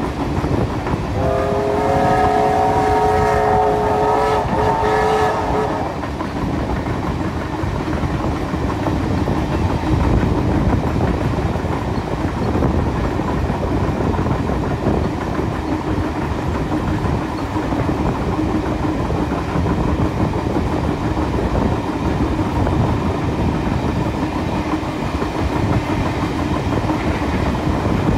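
A steam locomotive whistle sounds one long blast of several notes at once, starting about a second in and lasting about four and a half seconds. Underneath and after it is the steady rumble and rush of a passenger train running at speed on the rails.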